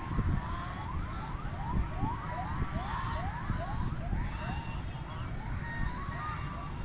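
Ducks calling: a quick run of short, rising calls, about three a second, strongest through the middle, over a low wind rumble.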